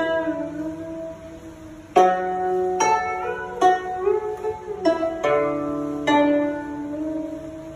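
Guzheng (Chinese zither) played solo: unhurried single notes plucked about a second apart, each left to ring and fade. A few notes bend in pitch as the left hand presses the string beyond the bridge.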